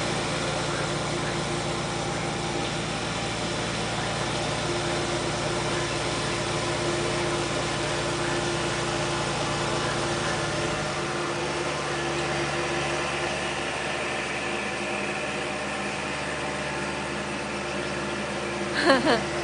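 Small farm tractors' engines running steadily as they till a flooded rice paddy; the lowest part of the hum falls away about halfway through. A brief voice sounds near the end.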